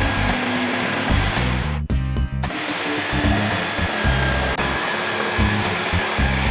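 A power tool runs steadily, stops briefly about two seconds in, then starts again. Background music with a steady beat plays beneath it.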